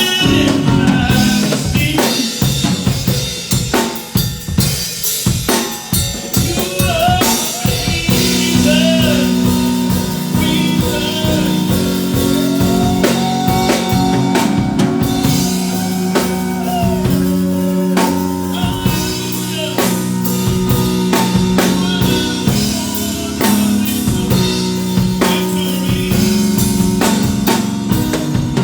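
Live band music: a drum kit with kick and snare plays a steady beat over sustained low held notes, loud throughout.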